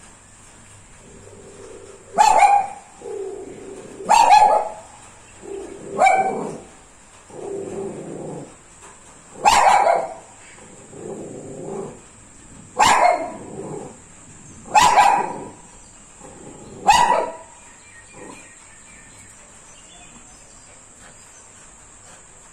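A dog giving guard barks: seven sharp barks spaced about two seconds apart, with softer, lower calls between them, then it stops.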